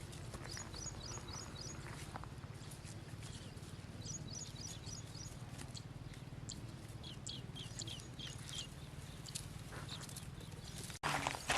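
A small bird chirping: two quick runs of about five high notes, then several short falling chirps, over a steady low hum. Near the end the sound cuts off abruptly and gives way to louder rustling.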